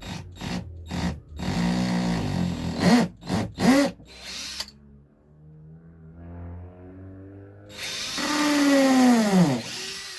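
Power drill boring pilot holes in wood for hinge screws: a few short trigger bursts, a longer run, and a final run near the end whose motor pitch falls as it winds down.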